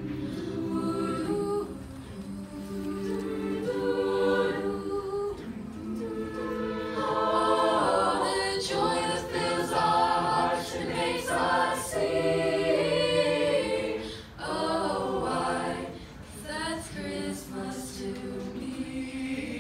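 Mixed youth choir singing a cappella in several parts, without accompaniment.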